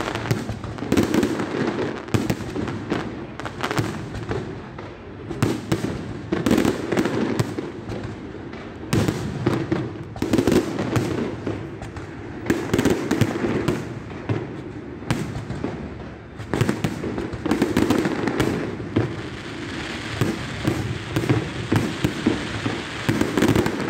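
Aerial fireworks display: shells bursting in quick succession, many bangs a second in clusters, over a continuous crackle from glittering stars that grows brighter near the end.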